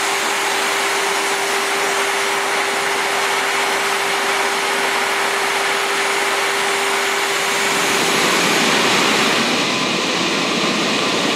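Steady loud machinery noise in a coal-fired power plant's boiler house at the pulverised-coal burners, with a steady hum running through it. Near the end it gives way to a different steady machine noise with higher tones.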